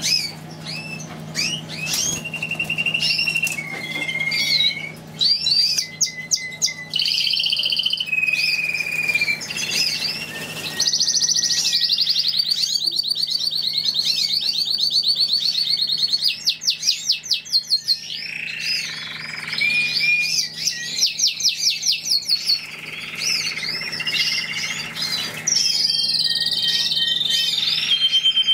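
Caged finches singing: a long, varied song of whistled notes and chirps, with a fast trill lasting several seconds in the middle.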